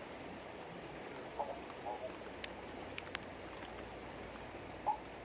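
Steady hiss of rain and flowing river water, with a few short chirps and faint ticks scattered through it.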